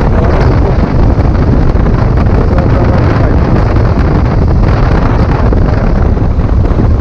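Wind rushing over the camera microphone of a moving BMW F800 motorcycle, with the bike's 798 cc parallel-twin engine and road noise running steadily underneath.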